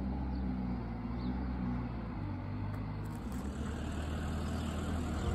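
A vehicle engine running steadily, a low hum whose pitch shifts slightly about two seconds in.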